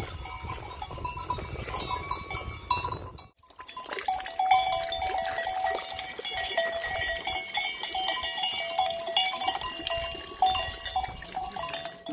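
A herd of goats milling about, with their bells clinking irregularly. The sound breaks off briefly about three seconds in.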